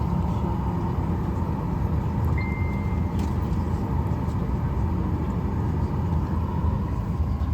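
Steady low rumble and hiss of an airliner cabin with the plane standing still, the ventilation and aircraft machinery running. A short single high beep sounds about two and a half seconds in.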